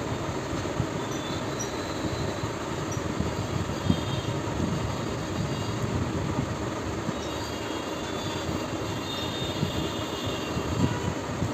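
Close-miked eating sounds: chewing and mouth noises from a mouthful of rice, beans and fried food, with a few sharper ticks, over a steady fan-like background hum.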